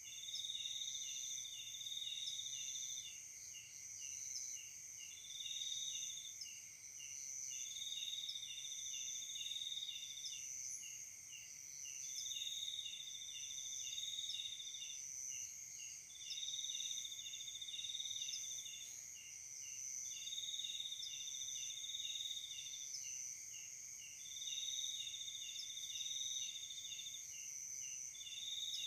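Night chorus of crickets and other insects: a rapid pulsing chirp, about four a second, under a higher trill that comes in bursts of one to three seconds with short gaps, over steady high-pitched trilling.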